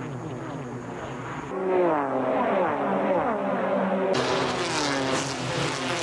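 A pack of NASCAR Goody's Dash Series race cars racing past, heard on TV broadcast audio: many engines running at speed together, their pitches rising and falling over one another. The sound jumps to a louder clip about a second and a half in and changes again near four seconds.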